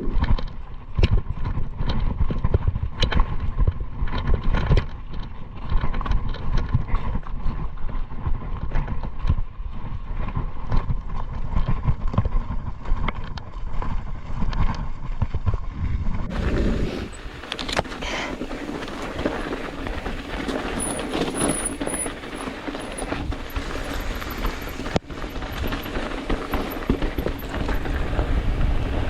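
Mountain bike rattling and clattering over rough trail, with rapid irregular knocks over heavy wind rumble on the microphone. About sixteen seconds in the clatter gives way to a steadier rushing noise.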